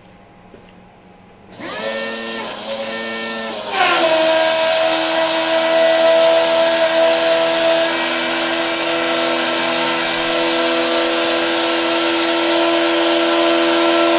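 Small 12-volt electric water pump starting up on 40 amps from a battery charger, its whine rising in pitch, then jumping about four seconds in to full speed. From there it runs with a steady hum under the hiss of water jetting from a cone spray nozzle.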